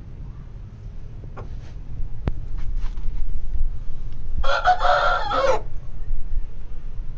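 Rooster crowing once: a short, loud crow lasting about a second, a little past halfway through, over a steady low rumble.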